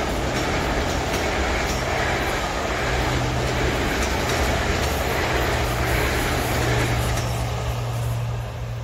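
South Western Railway electric multiple-unit train passing close by, a steady rumble of wheels on rail with faint regular clicks, dropping away near the end as the last carriage goes past.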